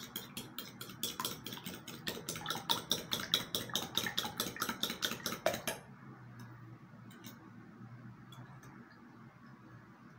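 A metal fork beating raw eggs in a ceramic bowl, clinking rapidly and steadily against the bowl's sides. The clinking stops about six seconds in, leaving a few scattered taps.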